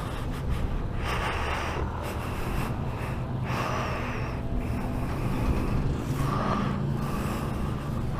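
Breaths close to the microphone, several short puffs, over a steady low rumble of traffic.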